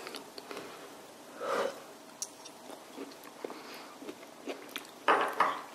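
Quiet chewing of a mouthful of food, with a few small sharp ticks and a louder short noisy burst a little after five seconds.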